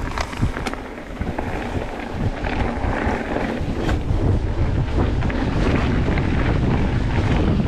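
Wind buffeting the microphone, mixed with the rumble of a Trek Top Fuel mountain bike's tyres rolling over a dirt forest trail. A few sharp clicks come in the first second, and the noise grows louder as the bike picks up speed.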